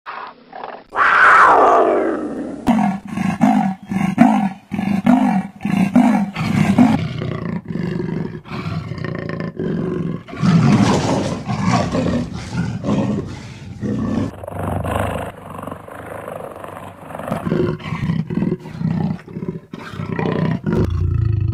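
Big cat vocalisations, cut together: a long roar falling in pitch, then a run of rhythmic grunts about two a second, followed by harsher snarls and growls.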